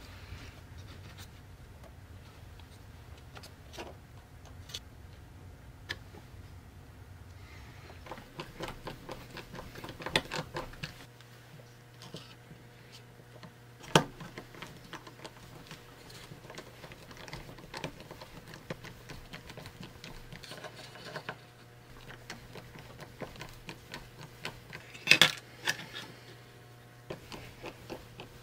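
Small assembly noises: a hand screwdriver driving small screws through a plastic battery holder and 3D-printed mounts into a wooden base, with scattered clicks, taps and scrapes. A sharp tap comes about 14 seconds in, and a cluster of louder clicks comes around 25 seconds.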